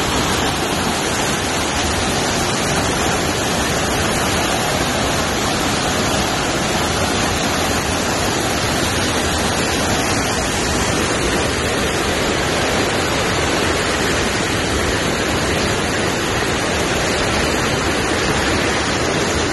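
Waterfall: a steady, loud rush of falling water with no breaks.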